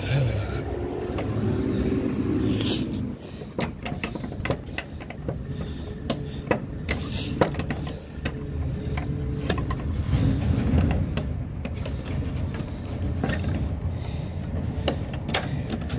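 A vehicle engine rumbling steadily, swelling twice, with irregular sharp clicks and knocks over it.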